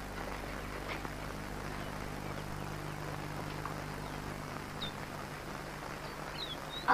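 Steady background hiss and low hum of an old film soundtrack, with a few faint, short, high bird chirps in the last couple of seconds.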